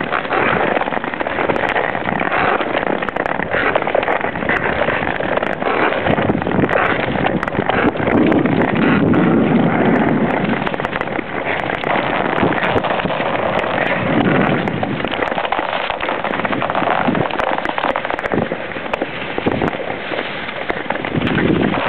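Ice skates gliding and scraping over natural lake ice: a steady, dense crackling hiss of blade on ice, full of small clicks.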